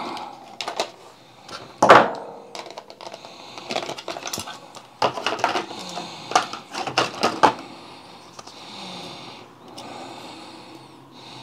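Stiff clear plastic blister pack of laptop RAM being cut and pried open, with sharp plastic cracks and clicks, the loudest about two seconds in. A cluster of clicks and clacks follows as the memory modules are pulled out and handled, then a quieter rustle.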